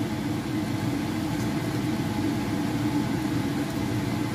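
Steady low hum of a running motor, even in level throughout.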